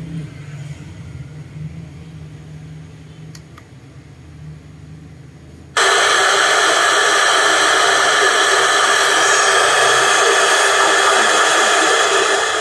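Greatnice GTS-1346 portable speaker switched into FM radio mode. After a low hum and two faint clicks, loud untuned FM static hiss starts abruptly about six seconds in and continues steadily.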